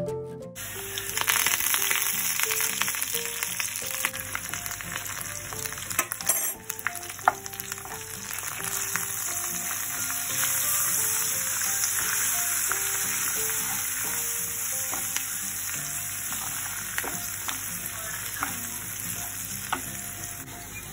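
Sliced onions and curry leaves sizzling steadily in hot oil and ghee in a pan, stirred with a wooden spatula that now and then knocks against the pan with a sharp tick.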